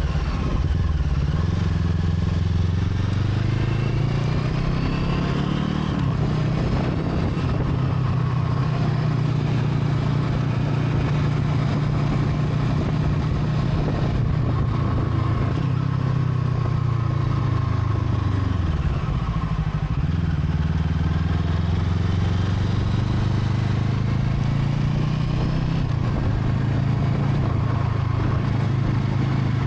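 Brixton Crossfire 500's parallel-twin engine running steadily under way. Its pitch climbs over the first few seconds, holds, dips about two-thirds of the way through, then climbs again.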